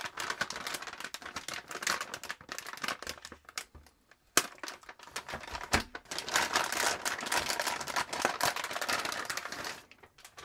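Metallic anti-static bag crinkling and crackling as it is handled, its tape peeled and the bag opened. There are two long stretches of crinkling with a pause between them and a couple of sharp clicks in that pause.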